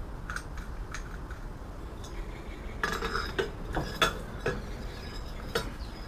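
Metal clinks and knocks of a propane furnace's burner tube being handled and slid into the furnace's steel side inlet, where retaining bolts hold it. A few light clicks at first, then a cluster of sharper knocks about three to four and a half seconds in and one more near the end.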